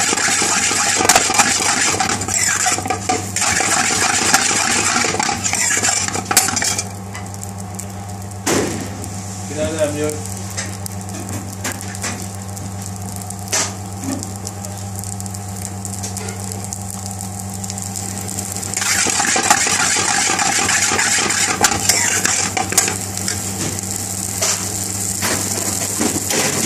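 Biryani rice frying in a metal pan, sizzling as it is tossed and stirred, with a metal spoon scraping and knocking against the pan. The sizzle drops after about seven seconds, leaving a few spoon knocks, and picks up loudly again for the last several seconds, over a steady low hum.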